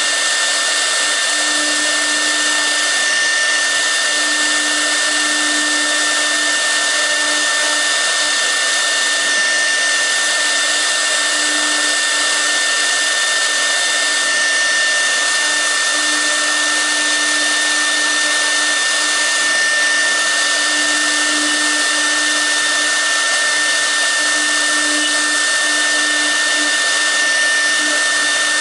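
6 kW air-cooled CNC router spindle running steadily during V-bit carving: a constant high whine over the rush of its cooling fan, with a lower hum that swells and fades.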